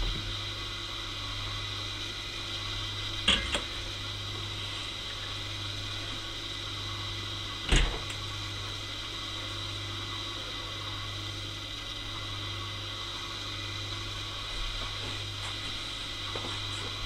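Steady electrical motor hum, with a short clack about three seconds in and a knock near eight seconds as a beer glass is set down on a stainless steel drip tray.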